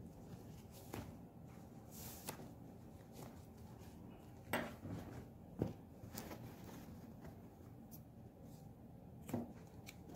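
Faint handling sounds from crochet work: scattered light clicks and rustles of a crochet hook and thick kilim yarn as the yarn end is worked into the rug, with a couple of sharper taps around the middle.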